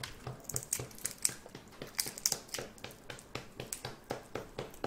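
Shells of cooked red shrimp crackling and snapping as they are peeled apart by hand, in an irregular run of small sharp clicks.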